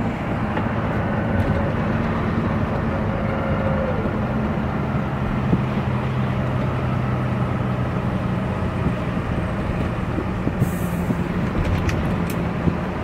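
Heavy truck driving at a steady speed, heard from inside the cab: a steady engine hum over road and tyre noise.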